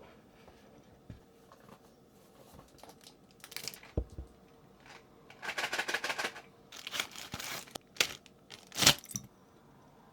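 Keyboard packaging being unwrapped, with tearing and crinkling of wrapping in several bursts. There is a knock about four seconds in, and the loudest burst comes near the end.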